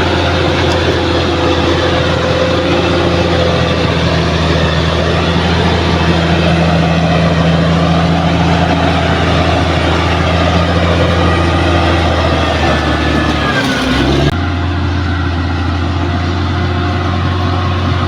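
Bulldozer's diesel engine running steadily and loudly. Its pitch drops briefly near the end, and then the sound changes abruptly.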